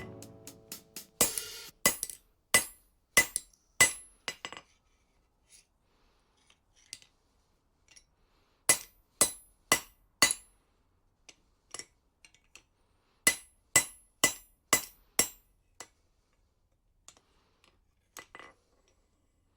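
Blacksmith's hammer striking hot steel on an anvil, in runs of blows about two a second, each with a bright ring, and lighter taps on the anvil between the runs.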